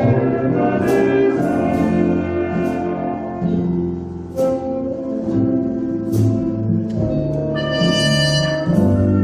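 Big band playing, its brass section holding chords that change every second or so, with a bright high chord held for about a second near the end.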